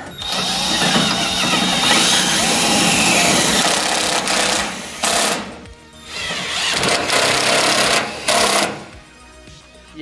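Power drill driving self-drilling tek screws into aluminium checker-plate sheet, in two long runs with a short break between them.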